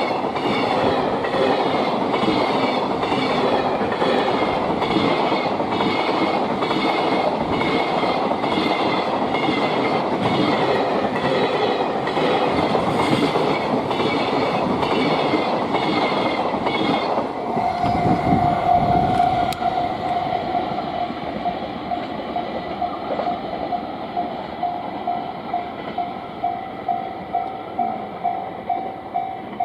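A train running through a Japanese level crossing, its wheels clacking in an even rhythm over the rail joints, with the crossing's electronic warning bell going. The train clears a little over halfway through, and the bell rings on alone as a steady pulsing tone of about two strikes a second.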